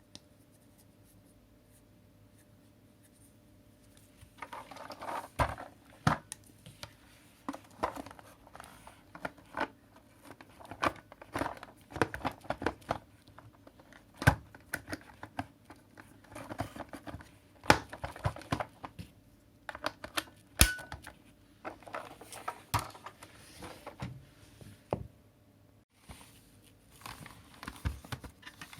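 Irregular clicks, knocks and crinkling rustles of objects being handled by hand, starting about four seconds in.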